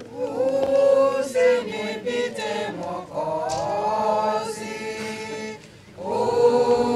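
A congregation singing a hymn together without accompaniment, voices holding long notes. The singing breaks off for a moment near the end, then starts again.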